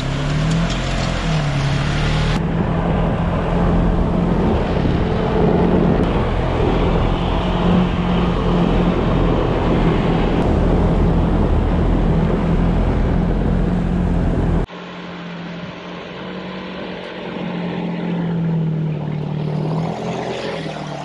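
Polaris Ranger Northstar side-by-side on rubber snow tracks driving through snow: its engine runs with its pitch rising and falling as the throttle changes, over a dense rumble of engine and track noise. About two-thirds of the way in the sound turns suddenly quieter, and the engine can still be heard rising and falling.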